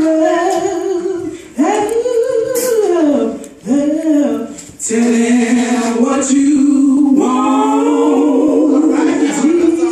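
Small gospel vocal group singing a cappella, several voices together with long held notes and sliding pitch.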